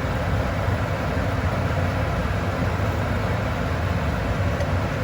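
A steady low hum with a broad even hiss over it, unchanging throughout.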